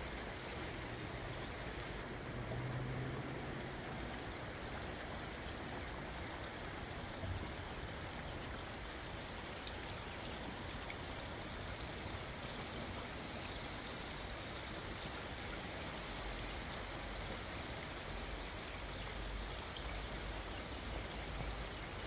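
Steady rain, with water trickling and splashing down a metal rain chain of flower-shaped cups hanging from the gutter. A low rumble joins in over the last few seconds.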